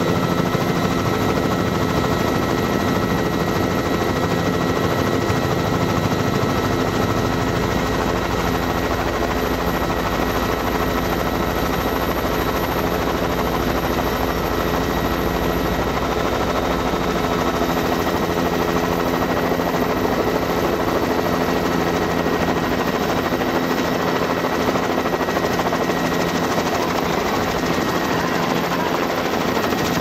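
Helicopter in flight heard from inside the cabin: a steady drone of engine and rotor with a fast, even beat from the rotor blades and a few steady whining tones above it.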